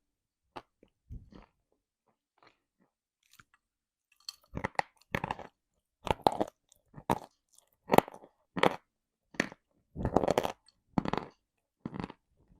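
Crunching and chewing on hard, dry lumps of edible chalk and clay. A few faint crunches come first, then from about four seconds in there is a run of loud, crisp crunches at roughly one per second.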